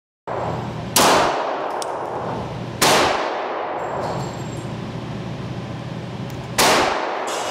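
Three pistol shots, about one second in, near the three-second mark and about a second before the end, each a sharp crack with a ringing tail.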